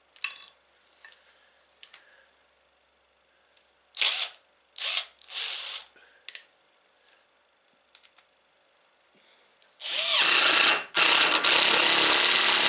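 Cordless impact driver driving a lag screw into a wooden block. The motor spins up and, under load, the impact hammer engages and hammers for about three seconds near the end, with a brief break in the middle. A few short bursts of noise come earlier in the middle as the bit and screw are handled.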